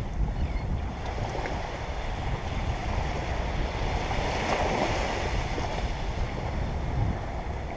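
Ocean surf breaking and washing up a sandy beach, with wind buffeting the microphone in a low rumble. A wave swells louder about four and a half seconds in.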